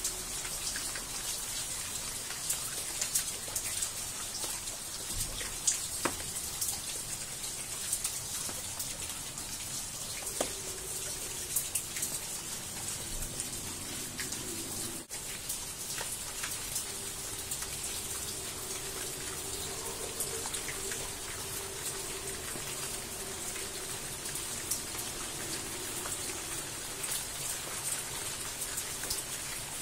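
Heavy rain pouring down, a steady hiss with many individual drops clicking on surfaces. A faint, steady low hum comes in about a third of the way through and runs under the rain.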